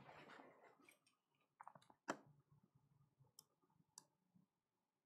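Near silence broken by a few faint, scattered clicks from a laptop being operated, the loudest a little past two seconds in.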